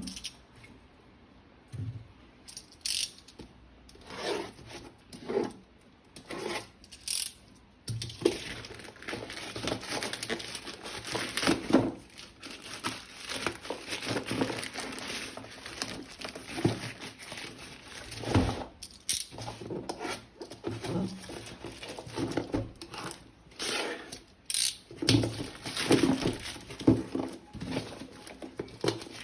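Toy gun packaging being handled during unboxing: plastic crinkling and tearing, with irregular clicks and knocks of plastic parts.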